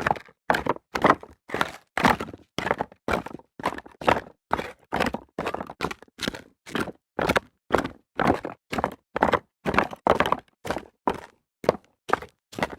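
Footsteps of a person running on rocks: a steady run of short footfalls, about two to three a second.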